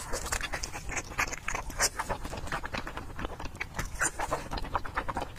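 Close-miked eating of fatty braised pork belly: wet chewing and lip-smacking in a rapid, irregular run of sticky smacks.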